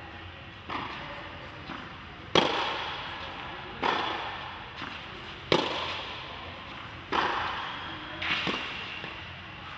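Tennis balls struck by rackets in a rally, a sharp pop every second or two with softer bounces in between, echoing in a large indoor tennis hall.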